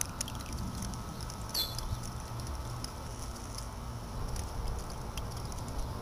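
Small solar-powered fountain pump's jet falling back into a bucket of water: a light patter of droplets over a steady low rumble.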